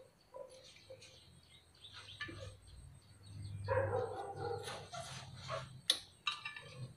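A man slurping instant noodles with chopsticks from a metal bowl. The slurping is loudest in a rough stretch around the middle, with a few sharp clicks of the chopsticks against the bowl, the strongest about six seconds in.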